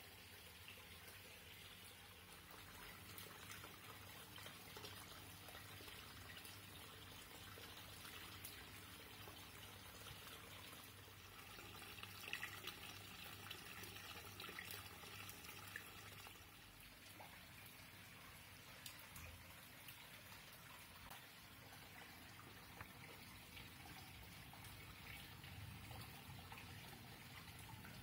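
Faint, steady trickling and pouring of water from an indoor waterfall wall into a shallow pebble-lined koi pool.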